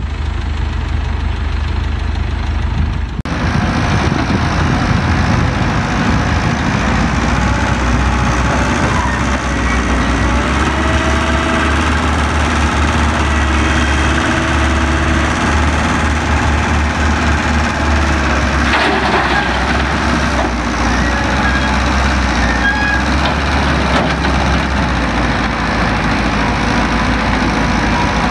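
An excavator's diesel engine runs steadily and loudly, its pitch shifting slightly as it works. The sound changes abruptly about three seconds in, and there is a brief louder burst a little past two-thirds of the way through.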